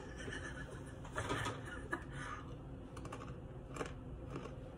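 Someone chewing a crunchy square cracker (ranch Wheat Thins), faint irregular crunches coming every half-second to second.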